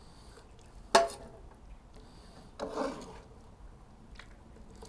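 A slotted metal skimmer clanks once sharply against metal about a second in, with a brief ring, then scrapes for about half a second as chunks of cooked pork and mushrooms are lifted from a cast iron Dutch oven into a stainless steel tray.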